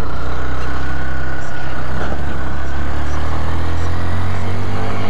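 Motorcycle engine running steadily while riding, its note holding even throughout.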